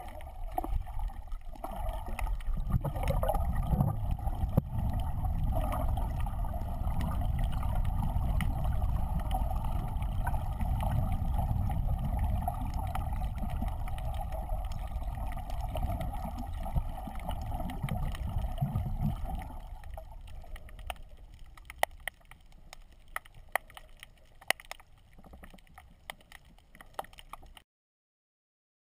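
Muffled underwater sound through an action camera's waterproof housing: a steady low rushing of moving water. About twenty seconds in it drops to a quieter hiss with scattered sharp clicks, then cuts off to silence near the end.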